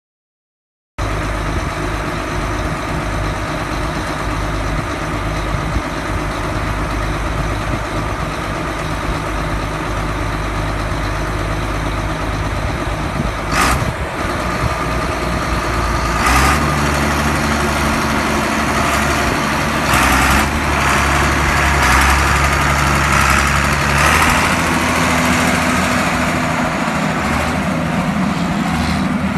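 A 1989 John Deere 4955 tractor's six-cylinder turbo diesel engine, idling steadily at first. About halfway through it speeds up, and it rises again later as the tractor drives off.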